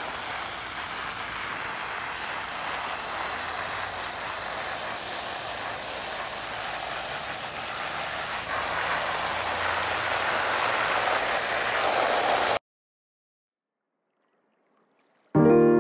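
Water spraying from a garden hose onto collard green leaves laid on grass, rinsing bugs off them: a steady hiss that cuts off abruptly about twelve seconds in. After a few seconds of silence, a ringing musical chord begins near the end.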